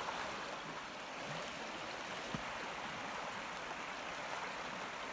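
Shallow, fast river rushing over rocks: a steady wash of running water.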